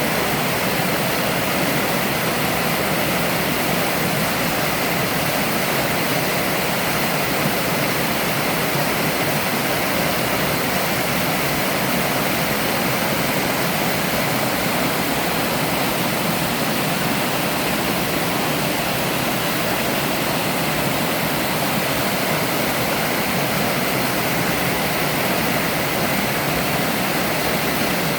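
Waterfall cascading into a mountain stream: a steady, even rush of falling water.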